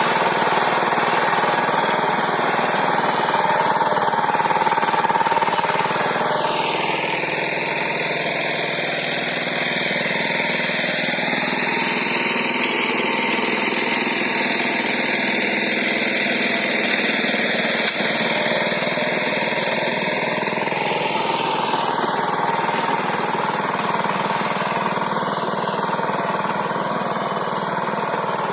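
Walk-behind tractor engine, about 12 horsepower, running steadily under load while it pulls a rotary tiller through garden soil. The sound is a little quieter after about six seconds.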